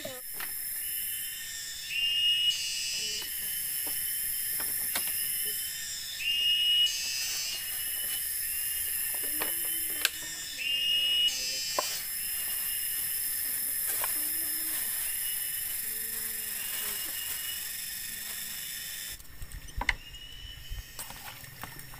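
Steady high-pitched drone of rainforest insects, with a rising whistle-like call that swells louder three times, about four seconds apart. About nineteen seconds in the drone cuts out, leaving faint clicks of a hand moving cut pieces in a metal pot of water.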